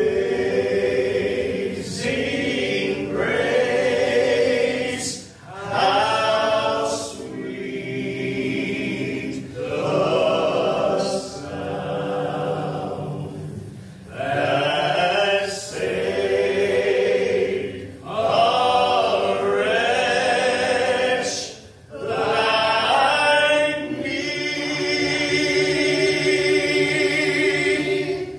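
Men's gospel vocal group singing in close harmony, phrases broken by short pauses every few seconds, ending on a long held chord.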